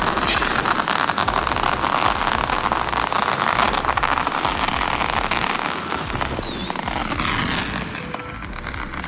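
A string of firecrackers going off in a rapid, continuous crackle of bangs, dying down near the end.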